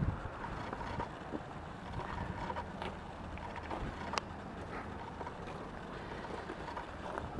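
Outdoor wind noise on the microphone, a steady low rumble with a few faint clicks scattered through it.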